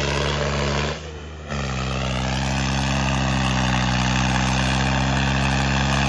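Two John Deere tractors' diesel engines pulling hard at full load against each other in a tug-of-war, a steady drone. The sound drops away briefly about a second in, then comes back.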